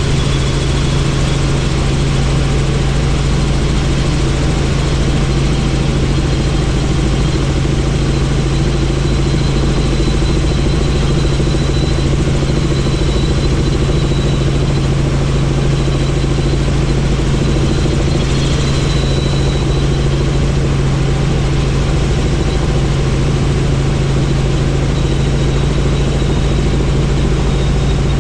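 Helicopter in flight: a steady drone of rotor and engine, a strong low hum under a broad rushing hiss, unchanging throughout.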